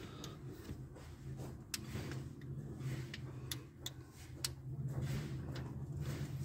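Torque wrench ratchet clicking in short, irregular strokes as the camshaft retaining plate bolts are run down to about 18 foot-pounds, over a steady low hum.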